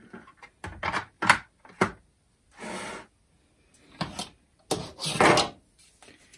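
Plastic fan housing handled on a metal workbench: several sharp knocks and clicks, a short scrape, then a louder, longer scrape a little before the end as a cordless drill is picked up.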